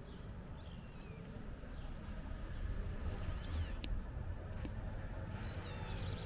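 A kitten gives a few high-pitched mews, the loudest near the end, over a low background rumble. A single sharp click sounds about four seconds in.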